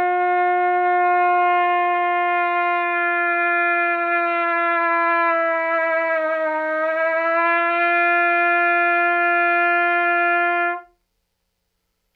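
Trumpet holding one long note in a pitch-bending exercise for finding the center of the pitch. About halfway through, the note is bent slightly lower, then brought back up to settle in the center. It stops about a second before the end.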